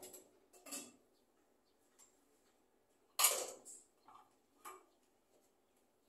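Dry grass of a small bird's nest rustling in a few short crackles, the loudest about three seconds in, as the scaly-breasted munia nestlings inside shift about.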